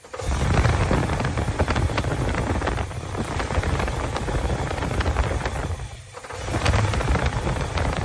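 Engine running while the ignition module's electrical connector is wiggled, its speed rising and falling as the connection breaks and makes. The sound drops away briefly about six seconds in and then comes back. The engine speed changing with the wiggling is the sign of a faulty connector, here together with a faulty ignition module.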